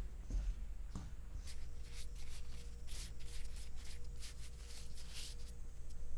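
Gloved fingers mixing dry curry spice powder in a stainless steel bowl: a quick run of soft, scratchy rustles, thickest in the middle, over a steady low hum.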